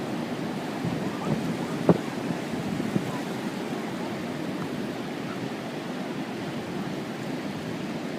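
Ocean surf breaking and washing in a steady rush, with wind buffeting the microphone. A single sharp knock about two seconds in.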